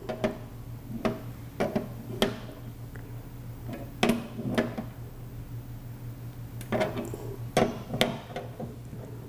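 Steel wrenches clicking and clinking against brass compression nuts as the water-line and feed-tube fittings on a humidifier solenoid valve are tightened, in scattered single clicks with a steady low hum underneath.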